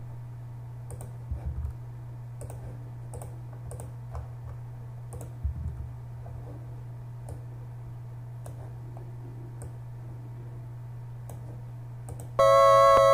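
Scattered clicks of a computer mouse and keyboard over a steady low electrical hum. About twelve seconds in, a loud, buzzy square-wave chiptune note from the NES music sample starts playing back.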